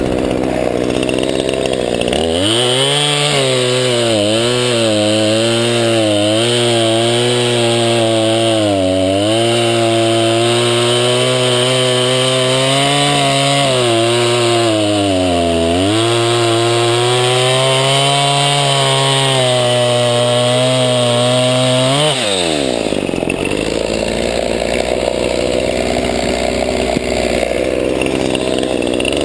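Craftsman 50cc two-stroke chainsaw with a 20-inch bar running loud and steady under load, as when bucking a log, its pitch sagging twice as the chain bites. About three-quarters of the way through the pitch drops sharply and it runs on at a lower, rougher note.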